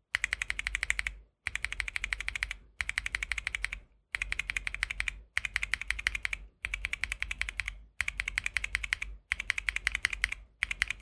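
Mechanical keyboard with Bean Green tactile switches being typed on fast, in runs of rapid keystrokes about a second long broken by brief pauses.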